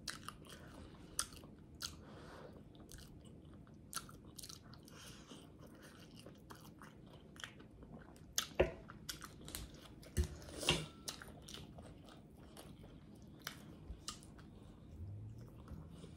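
Close-up chewing and smacking of a person eating collard greens and fried pork chop, with a few louder crunchy bites in the second half.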